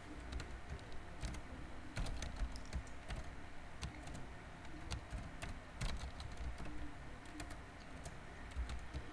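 Computer keyboard typing: irregular runs of sharp keystrokes with short pauses between them, over a faint steady hum.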